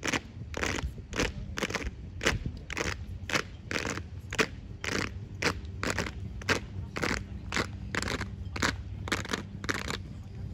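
Unarmed exhibition drill team's slaps and stomps, a steady run of sharp percussive hits at about two to three a second.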